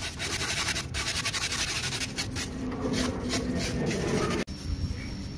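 Gloved hands rubbing and abrading a carved expanded-polystyrene (thermocol) leg, a steady rough scraping. It stops abruptly about four and a half seconds in, leaving a much quieter background.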